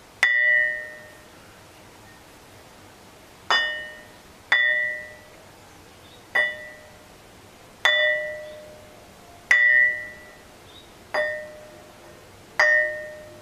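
A shaped slab of hornfels ring stone struck eight times, about every second and a half, each strike giving a clear bell-like ring with a lower and a higher note. Each ring dies away within about a second, damped by the fingers holding the stone.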